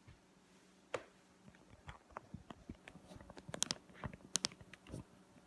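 Handling noise from a phone being held and adjusted close to its microphone: a string of irregular clicks and taps, a sharp one about a second in and a denser cluster in the second half.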